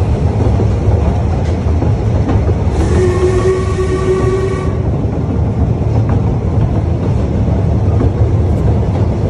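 A narrow-gauge heritage train running, a steady low rumble, with one whistle blast about three seconds in that lasts about two seconds.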